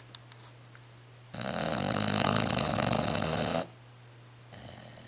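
Bulldog snoring in his sleep: one loud snore about two seconds long, starting over a second in and cutting off sharply. A much fainter breath follows near the end.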